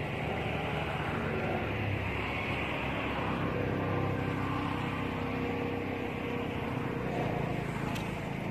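Steady motor-vehicle engine and traffic noise, growing a little louder toward the middle and easing off again.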